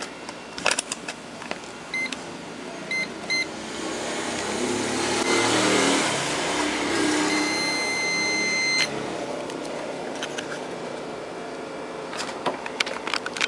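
Continuity beeper of a test meter sounding as a probe touches the blades of a 15 A blade fuse. There are a few clicks, short beeps about two and three seconds in, then a steady beep of about a second and a half that cuts off sharply; the beep shows the fuse conducts. A rushing noise swells in the middle.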